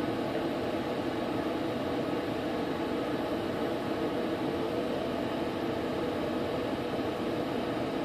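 Steady whirring hum of running ventilation: an even noise with no distinct events.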